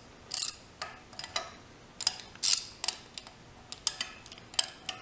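Ratcheting wrench and steel wrenches clicking and clinking against a steel welding table as a hold-down bolt is turned. About ten irregular, sharp metallic clicks, the loudest about halfway through.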